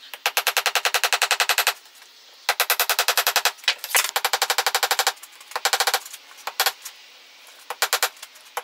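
Hand hammer striking a red-hot steel blade on an anvil in quick runs of light blows, about ten a second, then a few single blows near the end: forging the blade.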